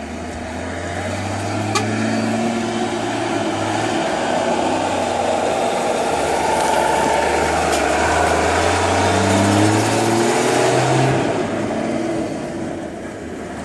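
Motor vehicle engine pulling under load, its low note rising and falling, under a loud rushing noise that builds to a peak about ten seconds in and then eases off.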